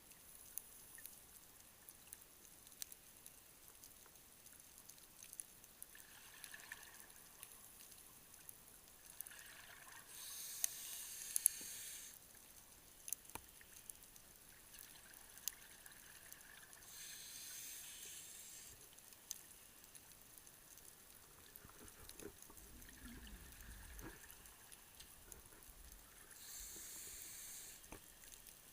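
Scuba regulator breathing heard underwater: three bursts of exhaled bubbles about every eight seconds, with fainter inhalation hiss between them. Scattered faint clicks throughout.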